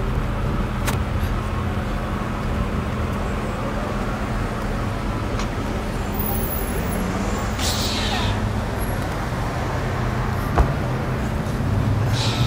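City street traffic noise with a vehicle engine humming steadily at idle, a short hiss about eight seconds in, and a sharp knock near the end.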